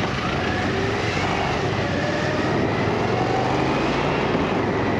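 Motorcycle under way: the engine runs steadily beneath constant wind and road noise, with a faint shifting engine pitch.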